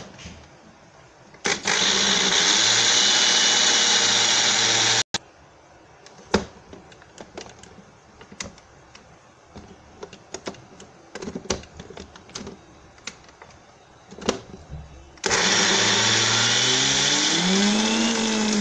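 Electric blender grinding dry groundnuts (peanuts) in two short runs of about three and a half seconds each, with light clicks and knocks in the pause between them. Near the end of the second run the motor's pitch sweeps up and then drops as it winds down.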